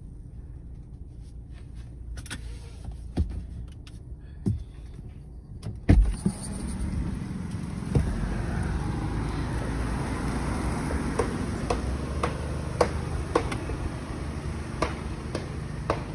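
A few clicks inside a parked car, then a loud knock of the car door unlatching about six seconds in, after which open-air noise comes in. From about halfway on, footsteps on asphalt tick roughly twice a second.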